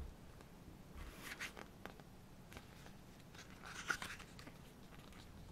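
Pages of a photo book being turned by hand: two soft paper swishes, about a second in and again near four seconds in, the second ending in a sharper flick.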